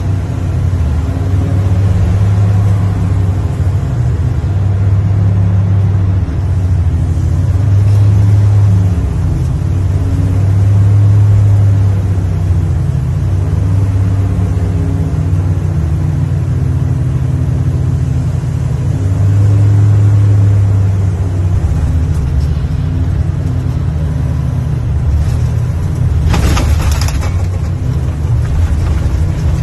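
Diesel engine and hydraulics of a heavy machine heard from inside its operator's cab, a steady low drone that swells and eases several times as the controls are worked. A brief hiss about 26 seconds in.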